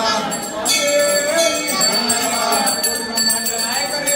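A puja bell ringing steadily on one high note, with voices singing underneath.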